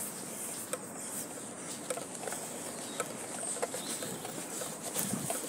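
Light, irregular clicks and rustling over a steady outdoor hiss: footsteps and handling noise from a phone carried by someone walking.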